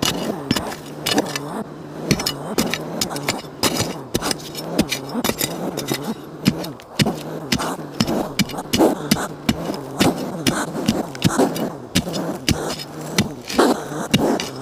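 A metal blade chopping and scraping into a dirt bank again and again, a few irregular strikes a second, with loose soil and clods crumbling and falling.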